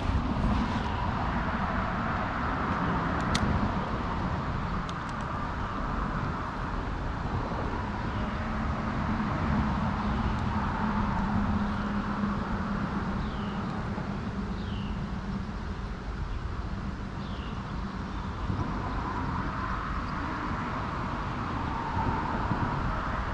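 Steady rumble of road traffic, with a few short, high, falling chirps through the middle.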